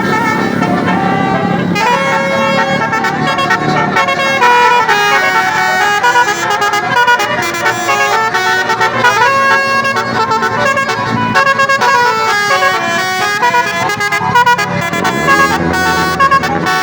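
Bus 'telolet' musical air horn (basuri) playing a fast melody, its several horn tones stepping from note to note several times a second. The melody grows fuller and brighter about two seconds in, over the low sound of a bus engine.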